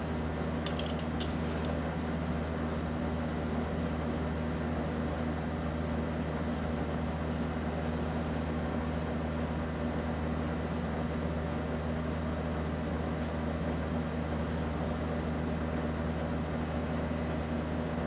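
Casablanca Delta II ceiling fan running steadily: a constant low motor hum with the even rush of the spinning blades, and a few faint clicks about a second in.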